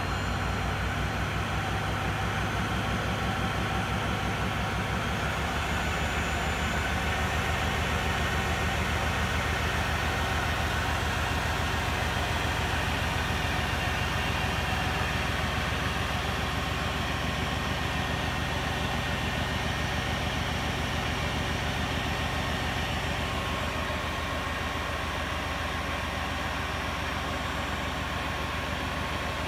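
Boxford A Mk 1 lathe running steadily under power, driven through a V-belt and step pulleys by a permanent-magnet DC treadmill motor on a PWM speed controller, with the spindle turning at about 720 rpm on the slower motor pulley.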